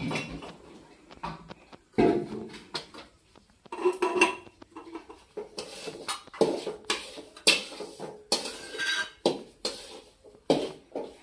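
A metal ladle scraping and clanking against a large metal cooking pot as upma is stirred, in an irregular run of sharp clinks and scrapes.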